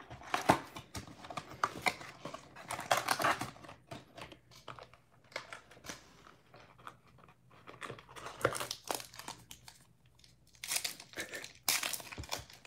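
Crinkling and rustling of foil trading-card pack wrappers and a Panini Prizm cardboard box as they are handled, with a pack being torn open. The sound comes in irregular bursts with a short pause shortly before the end.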